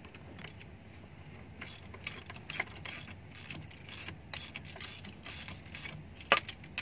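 Hand ratchet wrench clicking in short runs as it works a track roller's mounting bolt on an excavator undercarriage, with one sharp metal knock about six seconds in.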